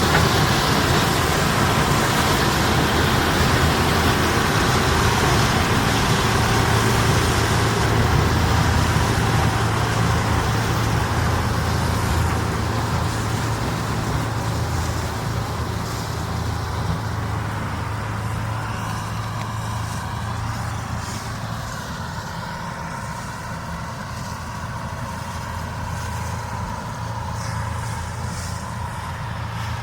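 Diesel engines of harvest machinery running steadily at work, with a broad mechanical hiss over the engine note. The sound fades gradually over the second half as the machine draws away.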